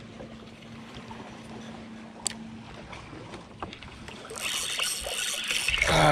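Quiet ambience on a bass boat. A faint steady hum stops about three seconds in, with a single light click just before. From about four seconds in, a rushing hiss builds and grows louder toward the end.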